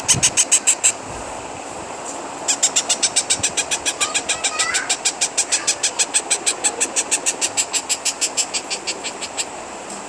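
Unfeathered parrot chicks giving food-begging calls: rapid, harsh, rhythmic chirps at about seven a second. There is a short run at the start, then a longer run lasting several seconds that stops shortly before the end, over a steady background hiss.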